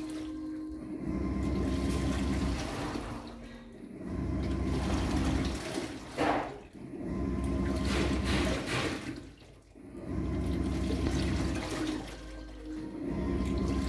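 Panasonic top-loading washing machine agitating a load in water on its delicate cycle: the motor hums in strokes of about two seconds with short pauses between, as the clothes are swished one way and then the other, with water sloshing. A brief sharper splash about six seconds in.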